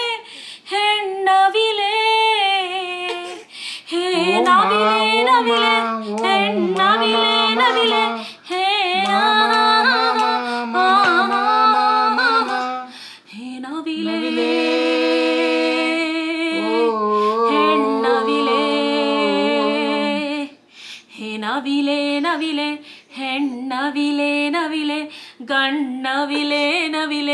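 A woman singing a Kannada song with no instruments, in phrases with short breaks between them.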